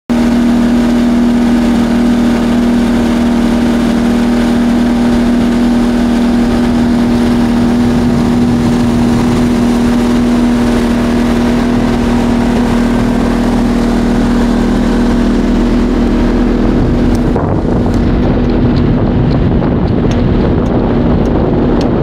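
Motorboat engine running at a steady speed, a constant drone with rushing water and wind noise. About three-quarters of the way through, the sound turns rougher and lower.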